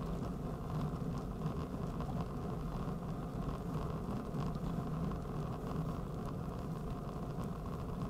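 Bicycle riding along an asphalt road: steady rolling and wind noise at the handlebar-mounted camera, heaviest in the lows, with faint scattered ticks.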